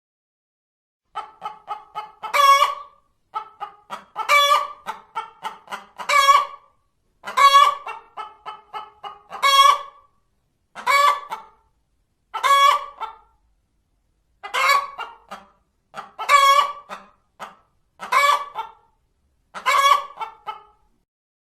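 Hen cackling, the call hens make after laying an egg: runs of short clucks, each ending in a long, loud squawk, repeated about every two seconds.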